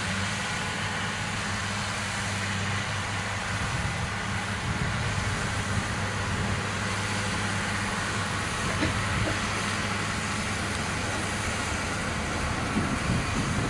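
Massey Ferguson 6180 tractor running steadily under load while pulling a John Deere 590 baler working through grass, with the baler's machinery noise over the engine.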